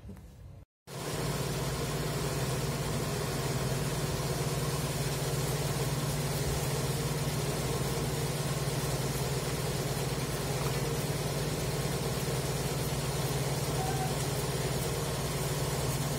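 A loud, steady hum with a constant hiss over it, unchanging, starting abruptly after a brief cut to silence about a second in.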